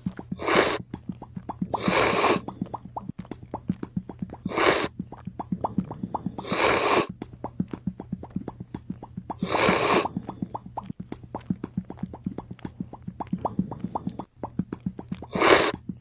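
Light background music of quick plucked, plopping notes, broken about six times by short loud bursts of hissing noise.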